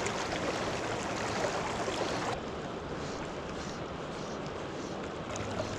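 Swift, riffled river current rushing steadily past close by, a continuous wash of moving water.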